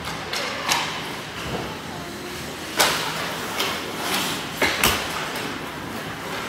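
Ice hockey play in front of the net: skate blades scraping on ice and sharp cracks of sticks and puck, the loudest about three seconds in and two more close together near five seconds, with voices echoing in the rink hall.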